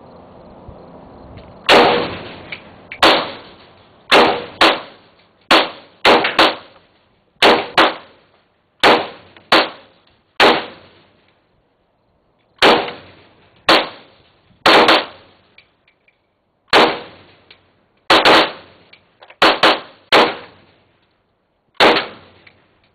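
AK-47 rifle firing single semi-automatic shots of 7.62×39mm: about twenty loud shots at an uneven pace, some in quick pairs, each followed by a short echo, with a pause of about two seconds around the middle.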